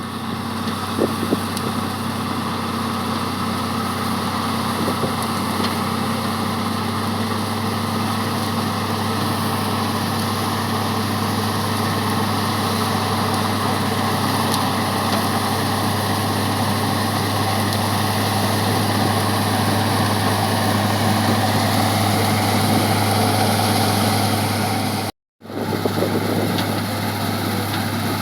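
Combine harvester running with a steady engine drone. The sound cuts out for a moment near the end and then resumes.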